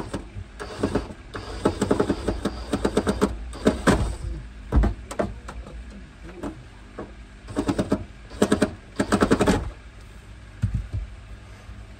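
Power drill driving screws in several short bursts of rapid clicking, a stretch of bursts early on and another cluster near the end.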